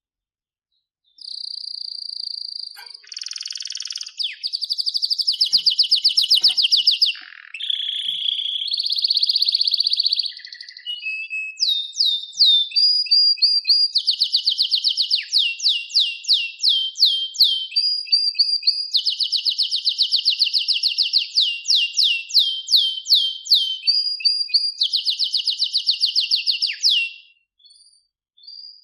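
Canary singing a long, varied song: high steady trills and buzzy rolls, then fast runs of sharply falling notes, starting about a second in and stopping shortly before the end.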